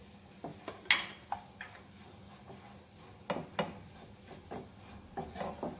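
A spoon clinking and scraping against a pan while a potato filling is mixed, a handful of sharp knocks with the loudest about a second in.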